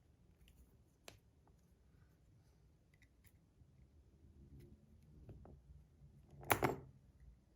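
Faint clicks and scrapes of a bronze magnetic fidget's metal parts being worked apart by hand, with a louder clatter of several clicks near the end.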